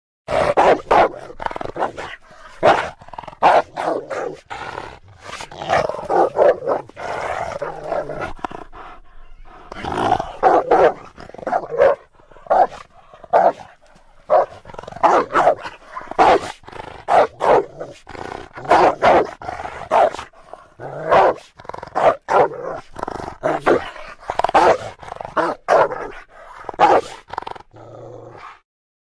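Dog barking and growling: a long run of short, loud barks coming in uneven bursts with brief pauses between them.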